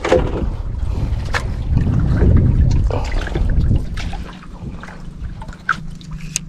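Water splashing and trickling, with a low rumble that eases off after about four seconds and a few sharp knocks.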